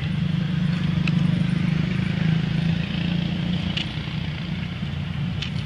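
Steady low rumble of a motor vehicle engine running, with a few brief faint high clicks or squeaks over it.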